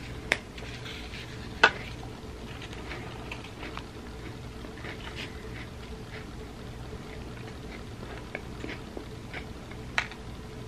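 Close-miked eating: a cracker snapped by hand and crunched, with wet mouth sounds from chewing it with a thick chocolate dip. Sharp snaps come just after the start, louder about a second and a half in, and again near the end.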